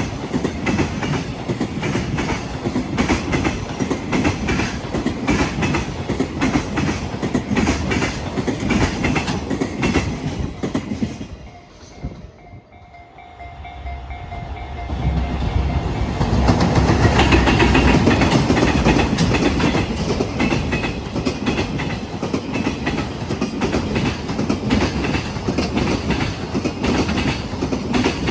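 Freight train wheels running over rail joints with a loud, rapid clickety-clack over a continuous rumble. The noise dies away about eleven seconds in, then returns louder a few seconds later and carries on.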